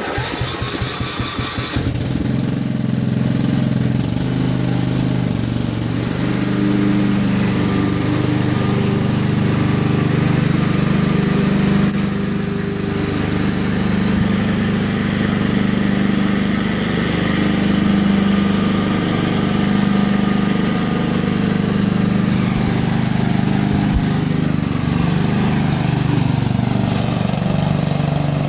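Craftsman riding lawn mower engine starting: it turns over and catches within the first couple of seconds, then runs steadily.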